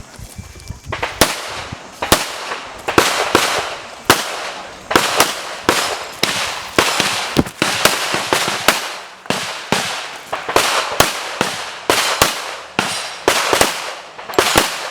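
Handgun shots fired in a fast course of fire in IPSC practical shooting, a sharp crack roughly every half second, often as quick pairs, each followed by a short echo.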